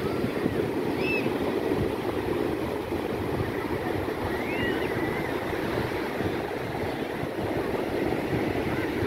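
Surf breaking and washing up on a sandy beach, a steady rushing noise, with wind buffeting the microphone.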